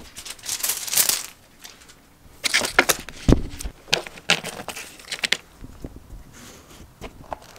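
Crinkly rustling of a kasha-kasha cat wand toy's plastic-film strips as a cat bats, bites and wrestles it against a cardboard scratcher, coming in several irregular bursts. A dull thump falls a little before halfway through.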